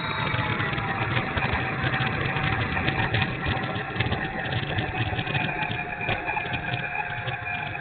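Twin 64 mm electric ducted fans of an E-flite A-10 Thunderbolt II running with a steady whine that sags slightly in pitch, overlaid with rapid irregular clicking and rattle. It is a rough, unhealthy motor sound that the owner judges bad.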